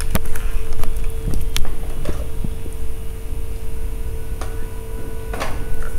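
Handling noise from an apartment door-intercom handset being picked up and held: a low rumble with scattered clicks and knocks, over a steady hum tone that runs throughout.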